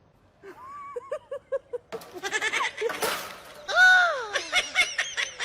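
An animal calling: a run of short cries that each rise and fall in pitch, with a longer drawn-out cry about four seconds in and quick short cries after it.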